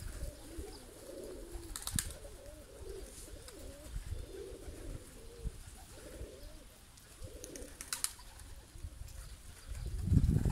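Domestic pigeons cooing: low, wavering calls repeating over and over, with a couple of sharp clicks, one about two seconds in and one about eight seconds in. A louder low rumble comes in near the end.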